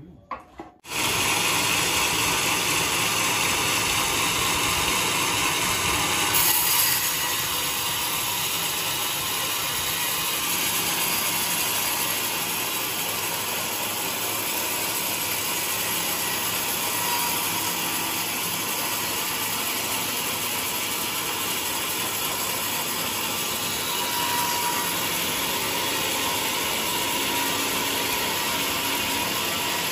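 Large band sawmill cutting lengthwise through a giant trembesi (rain tree) log: a loud, steady, dense sawing noise from the blade and machine that starts abruptly about a second in and holds without a break.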